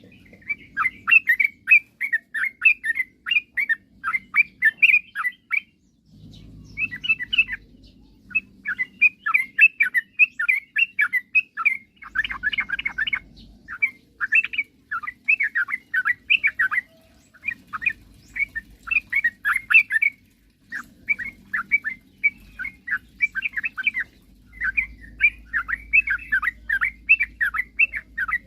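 Yellow-vented bulbul (trucukan) song: rapid, bubbling runs of chirping notes lasting a few seconds each, broken by short pauses. A low rumble comes and goes underneath.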